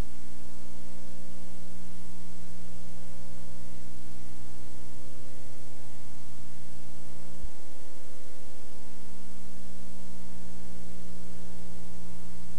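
A steady electrical hum with a faint hiss, typical of an old film or tape transfer. A sharp click comes about seven and a half seconds in, and the main hum drops out for about a second after it.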